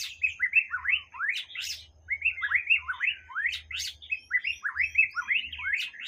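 White-rumped shama (murai batu) singing: a fast, unbroken run of whistled notes sweeping up and down, with a few sharp high clicks mixed in.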